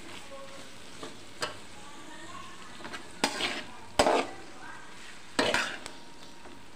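Metal spatula stirring and scraping fried bitter gourd and tomato masala in a kadai over a soft, steady sizzle. Three louder scrapes come in the second half, one with a sharp clink against the pan.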